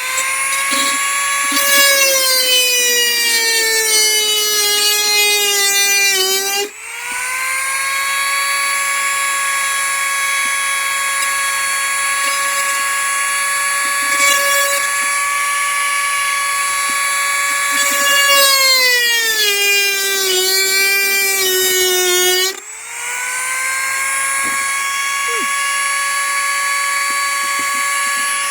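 Dremel rotary tool with a drill bit running at a steady high whine while drilling out a rivet. Twice its pitch sags as the bit bears down, then it dips briefly and spins back up to speed.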